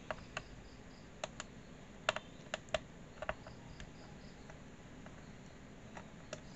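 Small, sharp, irregular clicks of a screwdriver tip working a screw out of a laptop's plastic base, about a dozen of them, the loudest about two to three seconds in.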